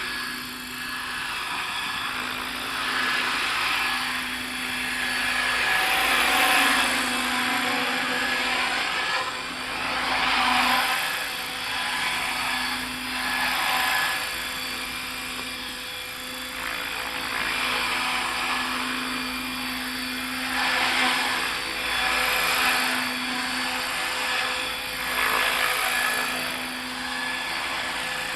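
ALZRC 505 electric RC helicopter in flight: the rotor and motor sound steadily under a held tone, growing louder and quieter by turns as the helicopter moves about.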